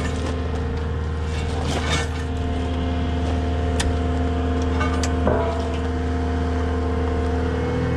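Cat 259D compact track loader's diesel engine running at a steady idle, with a few sharp metal knocks and clinks about two, four and five seconds in.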